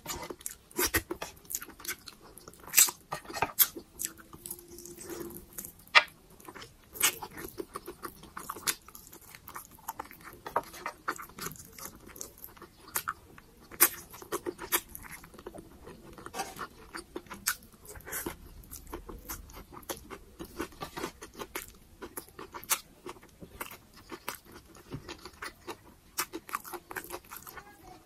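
Close-miked chewing and crunching of food, with many sharp, irregular mouth clicks and smacks.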